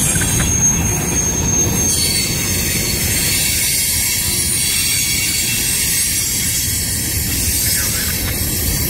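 Freight train cars rolling past on the rails: a steady, loud rumble of wheels on track, with a high hiss that rises about two seconds in.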